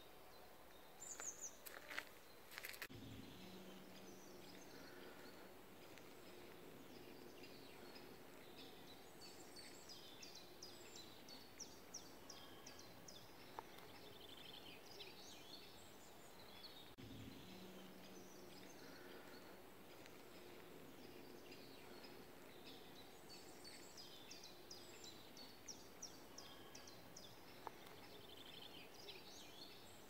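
Faint woodland birdsong: several songbirds singing, with quick high chirps and repeated fast runs of falling notes. A few sharp clicks and knocks in the first three seconds.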